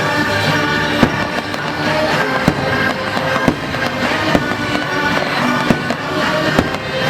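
Fireworks bursting with sharp bangs at irregular intervals, about a dozen of them, over the show's loud orchestral soundtrack.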